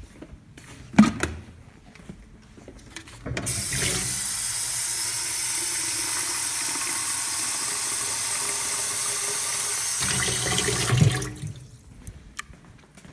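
Water running from a tap for about seven seconds, refilling the espresso machine's empty water tank, after a single knock about a second in.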